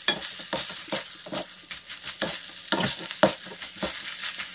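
Chopped bone-in chicken and pounded chili paste sizzling in a wok while a wooden spatula stirs it, scraping and knocking against the pan about two or three times a second.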